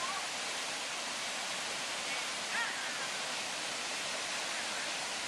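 Creek water rushing over rocks and small falls, a steady unbroken hiss.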